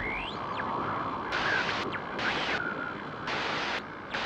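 GoPro logo intro sound effects: a deep rumble fading out at the start, with a rising whistling sweep, then hissing static that cuts in and out three times.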